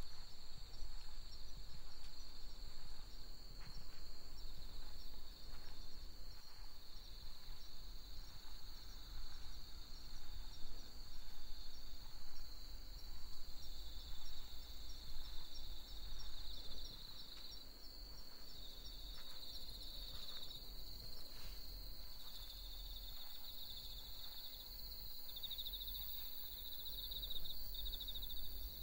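Night chorus of crickets and other insects: a steady high trill with a rapid pulsing chirp layered above it, over a low steady rumble.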